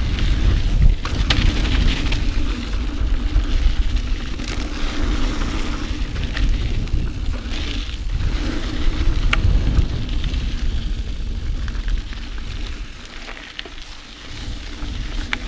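Mountain bike ridden along a dirt cross-country trail: tyres rolling and the bike rattling over the ground, with wind rumbling on the camera microphone. A few sharp clicks, and the noise eases briefly near the end.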